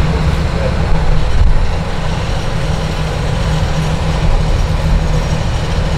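Joso Line diesel railcar under way, its engine giving a steady low drone with rail noise, heard from inside the driver's cab.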